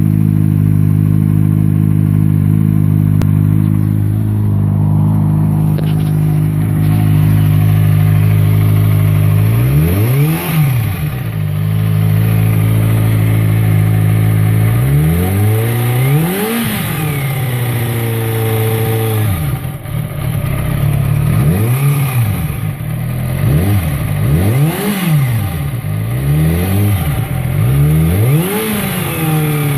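Kawasaki ZX-6R inline-four motorcycle engine idling steadily, then revved in about seven quick throttle blips, each rising and falling in pitch. A weird rattling noise shows up when the revs go over 5,000 rpm.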